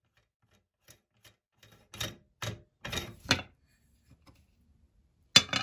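Cast-iron meat grinder being taken apart by hand: metal clanks and scrapes in four short bursts from about two to three and a half seconds in as its threaded retaining ring is unscrewed and put down on the plate, then two sharp clacks near the end.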